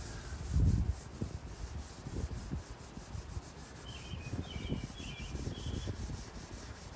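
Hand scrubbing on the porcelain enamel of a 1948 Youngstown Kitchens sink, irregular back-and-forth rubbing strokes as the surface is cleaned.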